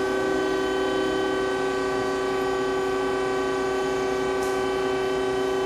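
Citizen L16 Type V CNC Swiss-type lathe running as it is cycled: a steady, even hum made of several tones.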